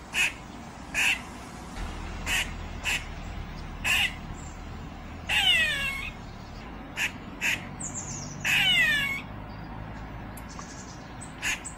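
Animal calls: short sharp calls about once a second, with two longer, louder calls that fall in pitch about five and eight and a half seconds in.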